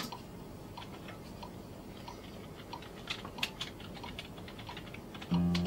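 Scattered light clicks of a computer keyboard being typed on at a recording workstation. Near the end acoustic guitar music comes in loudly.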